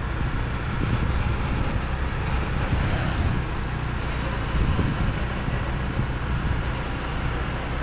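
Steady low rumble of vehicle engine and tyre noise on the move, with a thin, steady high-pitched whine above it.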